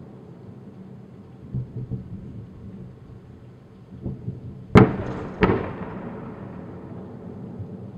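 Artillery fire echoing over a city at night: a low steady rumble with a few dull distant booms, then two sharp, loud blasts about two-thirds of a second apart a little past halfway, each followed by a rolling echo.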